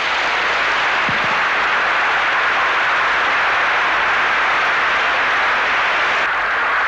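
Large audience applauding: a dense, steady wash of clapping.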